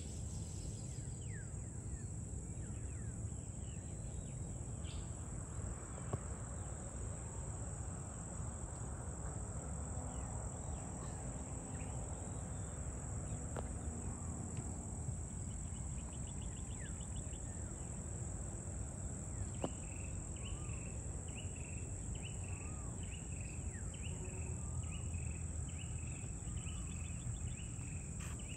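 Steady high-pitched insect chorus over a constant low rumble, with scattered short bird chirps. About twenty seconds in, a call starts repeating at an even pace, a little faster than once a second.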